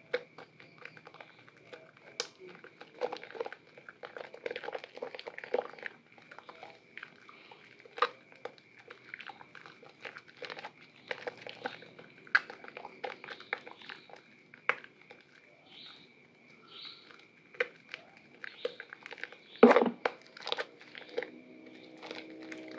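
Hands squeezing and kneading a soaked, mushy bar of soap in a basin of lather: irregular wet squelches and crackling foam. The loudest squelch comes near the end.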